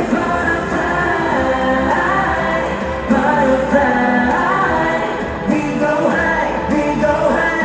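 K-pop song with singing over a full backing track, played loud throughout.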